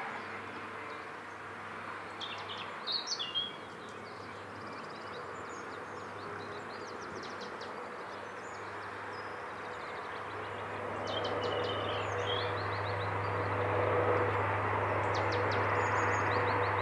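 Birds chirping and singing over a steady outdoor hiss. From about ten seconds in, the low steady rumble of a distant approaching train grows louder.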